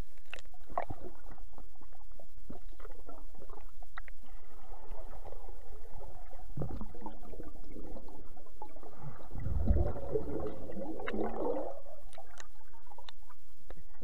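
Muffled underwater gurgling and bubbling heard with the microphone below the lake surface, stirred by a swimmer treading water, with small clicks throughout. The churning swells about two-thirds of the way in, with a deep rumble, then eases off.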